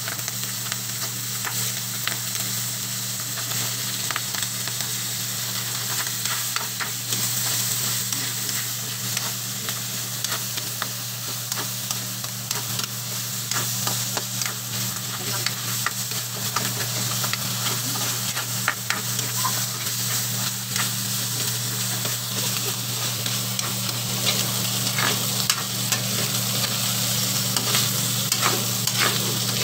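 Pork pieces sizzling in oil in a metal wok, with a spatula scraping and tapping against the pan as they are stirred. A steady low hum sits underneath.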